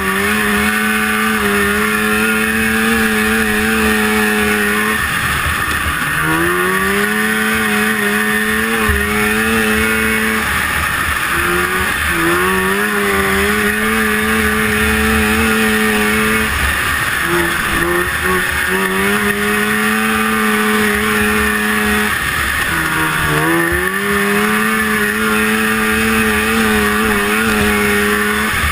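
1974 Rupp Nitro 340 snowmobile's fan-cooled two-stroke engine running flat out, heard from on board. It holds a high steady pitch, then four times drops in pitch and climbs back up, with a steady hiss of wind and track noise over it.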